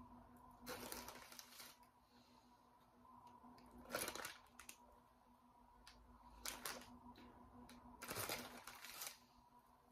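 Crinkly foil snack bag of Cheetos rustling in four short bouts as a hand rummages inside it for pieces.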